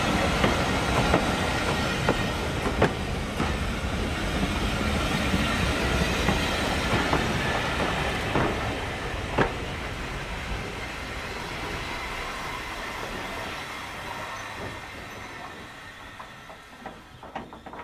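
British Railways Mark 1 passenger coaches rolling past on their bogies: a steady rumble of wheels on rail with occasional sharp clicks as wheels cross rail joints. The sound fades away over the last few seconds as the final coach passes and the train draws off.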